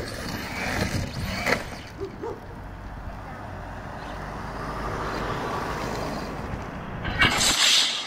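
Arrma Senton RC truck, running a Hobbywing 4000kv brushless motor, driving over loose gravel: its tyres crunch through the stones, with sharp knocks about one and a half seconds in. A loud harsh burst comes near the end.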